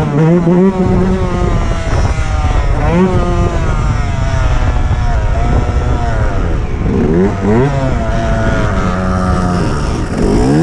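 Dirt bike engine revving, its pitch rising and falling again and again with the throttle, holding steady for a moment between.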